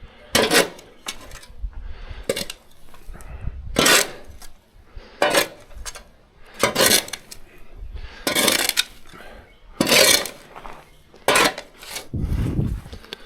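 A metal hand tool striking and scraping, one stroke about every second and a half, some sharp and short, some drawn out. A heavier low thump comes near the end.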